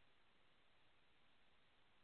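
Near silence: a faint, steady hiss.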